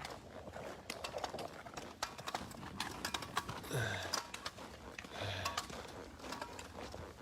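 Footsteps crunching along a trail while walking, a steady run of short clicks and scuffs, with a brief low grunt or sigh about four seconds in and another a second later.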